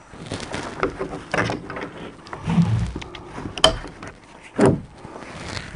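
A kayak hanging on wall-mounted storage hooks is handled and shaken to check that it sits firmly. There is a run of knocks and scrapes, a dull thump about two and a half seconds in, and a sharp click soon after.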